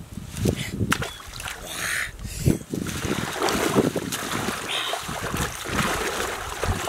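Water sloshing and splashing as a person wades chest-deep through a muddy ditch, becoming heavier and steadier about three seconds in.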